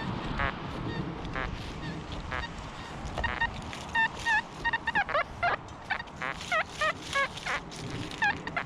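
Geese honking: short calls, sparse at first, then several a second from about four seconds in.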